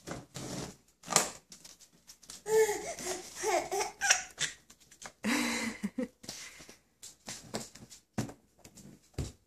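Baby laughing in short bursts, with clicks and taps from the buttons of a plastic electronic activity table.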